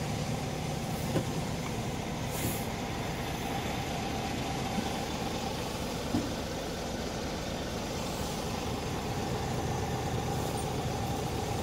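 Scania G400 tractor unit's diesel engine idling steadily, heard from inside the cab. There are a few faint ticks and a brief hiss about two and a half seconds in.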